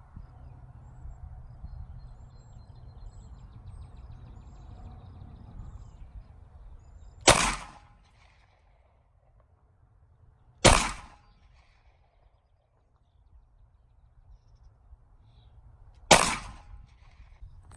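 Three single pistol shots fired slowly, several seconds apart: one about seven seconds in, one about three seconds later, and one near the end, each a sharp crack with a short echoing tail over a steady low hum.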